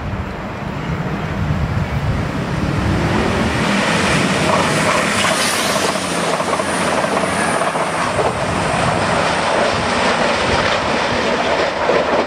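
CrossCountry Voyager diesel multiple unit running through at speed: the low drone of its underfloor diesel engines as it approaches, then from about four seconds in the loud, steady rush of wheel and rail noise as the coaches pass close by.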